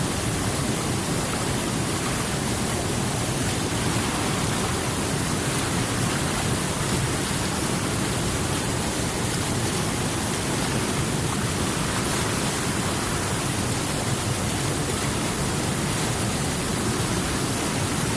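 Steady rushing of flowing water, an even hiss with no separate splashes or other events.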